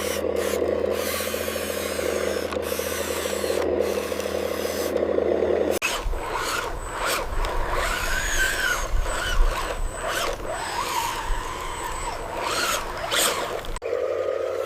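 Small electric motors and gears of RC construction vehicles running, with a steady grinding rasp. About six seconds in the sound cuts to a lower rumble with a whine that rises and falls in pitch, and about a second before the end it cuts back to the rasp.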